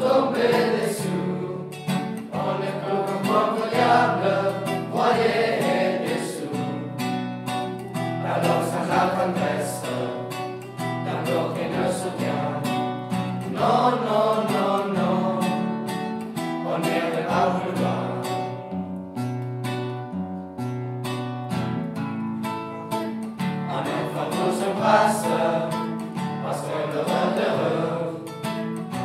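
A group of teenage boys singing a French song together, accompanied by an acoustic guitar.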